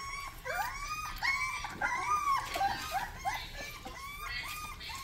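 Rottweiler puppies whimpering: a steady run of short, high whines that rise and fall, several puppies overlapping.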